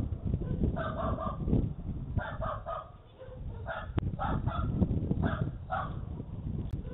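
About a dozen short animal calls in quick pairs and small groups, with a brief lull partway through, over a steady low rumble.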